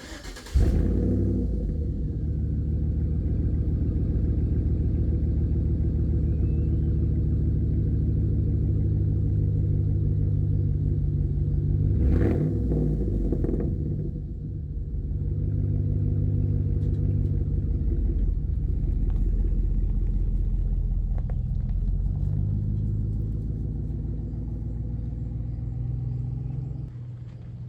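GMC Sierra HD truck with a custom dual exhaust starting up about half a second in and then idling steadily, with a short rev about twelve seconds in before it settles back to idle.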